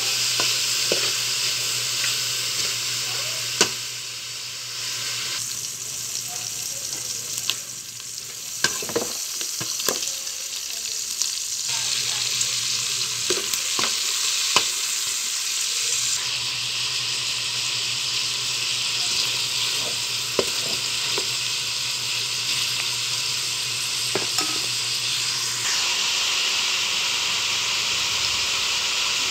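Food sizzling as it fries in oil in a metal pot, with a steady hiss. It is stirred with a metal spoon that now and then knocks and scrapes against the pot in short sharp clicks.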